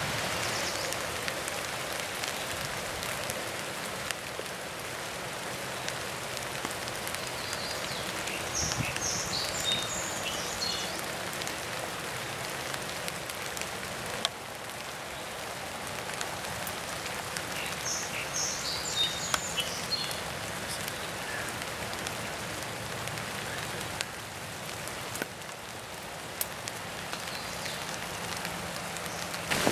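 Steady rain falling on leaves and grass: an even hiss, with two brief clusters of high chirps about nine and nineteen seconds in.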